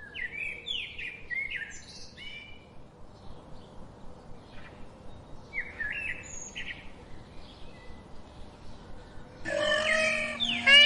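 Small birds chirping and twittering in quick bursts of short notes, in two clusters, one at the start and one around the middle. Near the end a louder sound with a stack of pitches starts.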